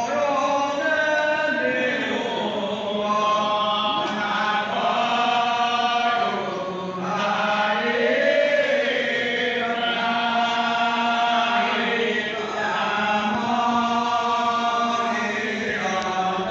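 Naam prasang: a congregation of devotees chanting Assamese devotional naam together in long, drawn-out sung phrases that run on without a break.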